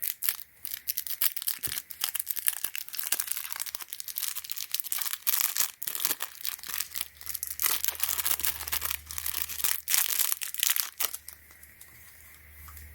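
Hands working small plastic parts and packaging: dense, rapid crinkling, crackling and scraping that goes on for about eleven seconds, then stops near the end.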